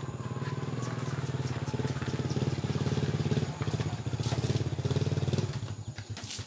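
A small engine running steadily with a rapid pulsing beat; about five and a half seconds in it drops away to a slow idle of separate putts.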